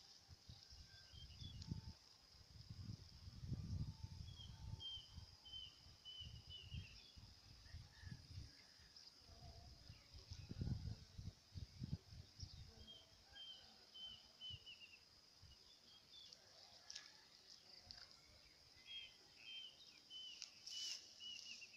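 Faint outdoor ambience: a steady high-pitched insect drone throughout, and a bird calling three times in quick series of short falling notes. Low rumbles of wind on the microphone come and go, strongest a few seconds in and again near the middle.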